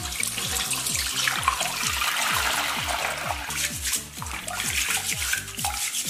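Tap water running into a steel basin and splashing as a raw pork hock is scrubbed by hand in it, over background music with a steady beat.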